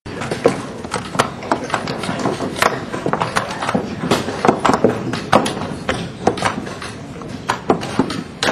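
Quick, irregular clicks and taps, several a second, of chess pieces being set down on a board and chess clock buttons being hit during blitz play, over a steady background hum of the playing hall.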